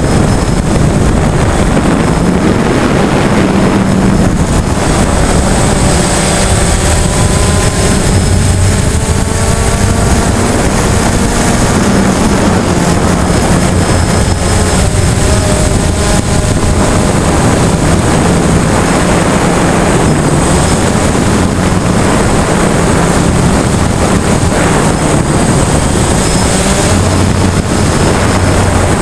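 DJI Phantom quadcopter's motors and propellers running, a loud steady buzz heard from the camera on board, mixed with wind rush. Its higher tones drift up and down at times as the motors change speed.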